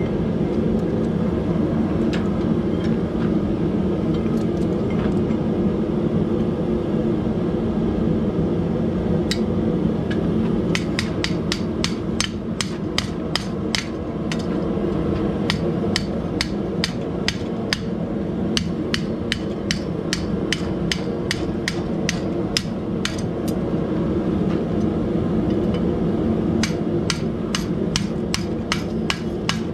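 Hand hammer striking a red-hot steel ring to bend it around a homemade pipe-and-square-stock forming jig. Sharp metallic strikes come in quick runs of about three a second from about ten seconds in, with a few short pauses. A steady low rumble runs underneath.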